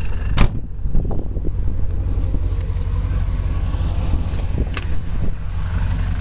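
Chevrolet Suburban's engine running with a steady low rumble, wind buffeting the microphone, and a sharp click about half a second in.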